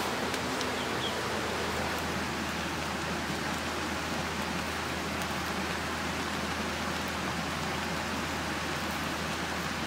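Fish broth with tomatoes, limes and chillies boiling hard in a black pan over a wood fire: a steady bubbling hiss with a few faint clicks.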